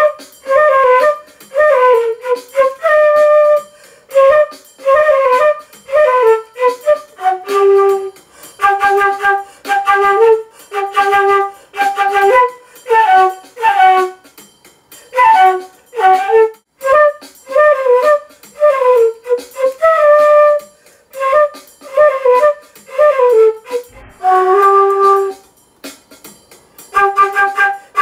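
Unaccompanied concert flute playing an improvised Caribbean jazz melody in short phrases, with brief pauses for breath between them.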